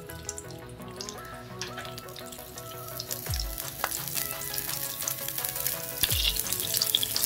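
Butter melting in hot oil in a stainless steel pan, sizzling and crackling and growing louder as the pan heats. Soft background music plays underneath.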